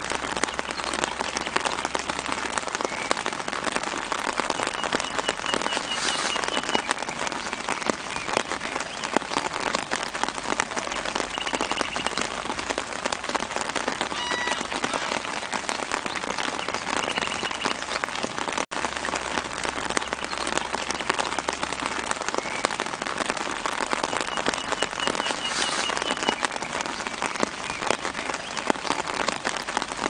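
Steady rain, a dense patter of many small drops at an even level, with a momentary cut about two-thirds of the way through.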